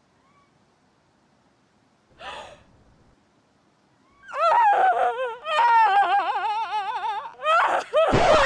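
A woman gasps sharply, then gives a long, high, wavering wail of shock with a fast wobble in the pitch, broken once by another gasping breath. Music comes in at the very end.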